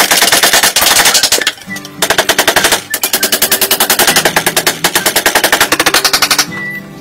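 Rapid run of sharp knocks from hand work on bamboo, about ten a second, with two short breaks, stopping about six and a half seconds in. Background music plays underneath.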